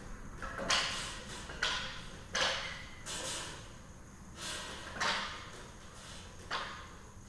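A person working across hanging ninja-gym obstacles: a series of about seven short, sharp sounds, roughly one a second, each dying away quickly.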